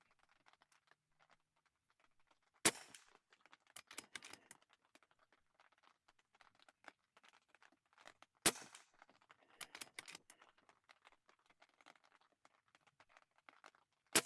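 Three shots from a factory-moderated Air Arms Kymira PCP air rifle, about six seconds apart, each a short sharp report. After the first two, about a second later, come a few clicks of the action being cycled for the next pellet.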